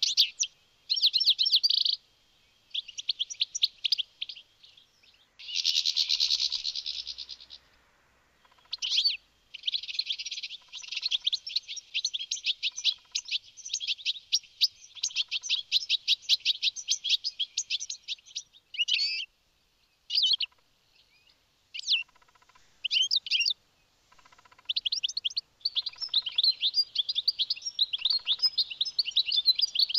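European goldfinch singing: rapid runs of high twittering notes in bursts with short pauses. The longest run lasts from about ten to eighteen seconds in.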